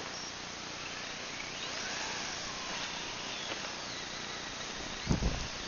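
Faint high whine of an electric RC model's motor running on a three-cell LiPo, sliding up and down in pitch as the throttle or distance changes. A short low thump comes about five seconds in.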